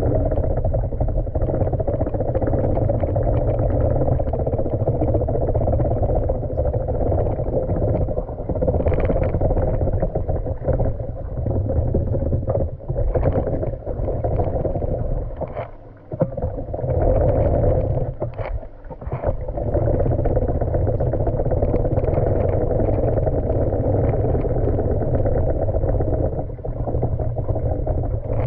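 Manual pool vacuum head with its suction hose being pushed over a tiled pool floor, heard underwater through a camera housing strapped to the head: a steady, muffled rumble and rush of water with a few knocks. The sound drops away briefly twice a little past halfway.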